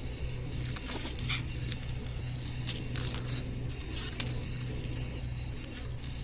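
Dry leaf litter crackling and rustling in scattered small clicks as a South African tiger snake moves its coils while gripping a striped skink, over a low steady hum.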